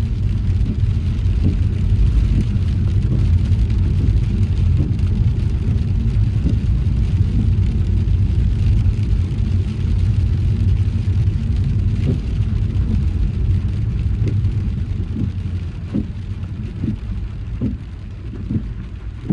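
Low rumble of road and engine noise heard inside a car driving in rain, with scattered taps of raindrops. The rumble drops a little in the last few seconds while the taps come more often.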